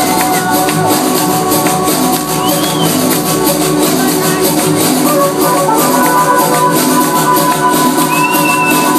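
Loud electronic dance music from a DJ set playing over a nightclub sound system. It has a steady beat under held synth tones, with some high gliding tones coming in near the end.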